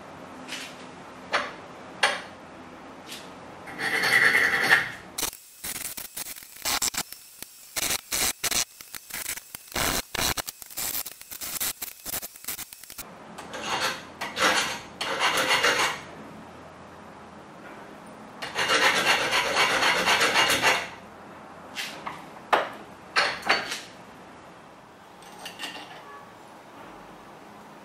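Hand file rasping against a small workpiece clamped in a bench vise: runs of quick back-and-forth strokes with short pauses between them, after a few sharp clicks at the start.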